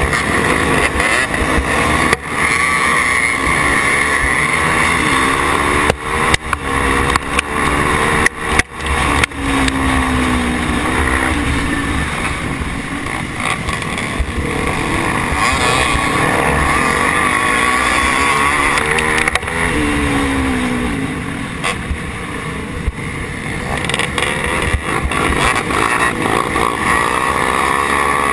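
Motocross dirt bikes racing in a pack, heard from on board one of them: the near engine revs up and falls back again and again as it works through the corners. A few sharp knocks come about six to nine seconds in.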